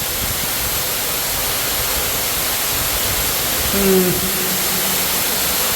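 Underground waterfall inside a mine working, pouring with a heavy flow and a loud, steady roar. A short voice sound comes about four seconds in.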